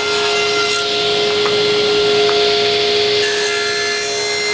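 Table saw running with a steady whine as its blade crosscuts a hollow walnut tube to length.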